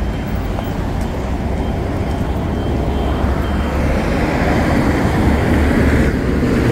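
Road traffic noise: a steady rumble of passing vehicles that swells louder in the second half, as one vehicle goes by close.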